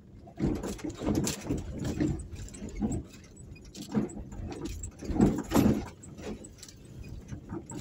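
Irregular buffeting and rattling noise on the microphone of a camera travelling along a rough, patched road, starting about half a second in and coming in uneven bursts.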